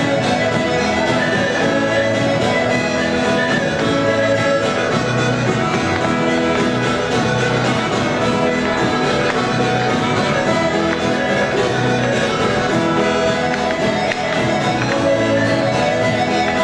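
Portuguese folk dance music of the rancho folclórico kind, played with a steady beat.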